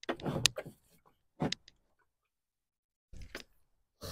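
Plastic coolant overflow tank being set down into the engine bay, scraping and knocking against the parts around it: a few short scrapes and clicks, with a silent gap of over a second in the middle.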